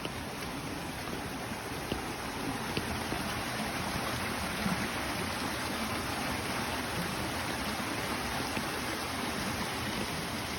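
Rain falling steadily, a dense even hiss with a few faint ticks of drops.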